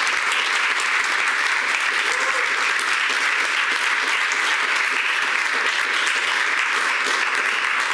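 Audience applauding steadily: a dense patter of many hands clapping.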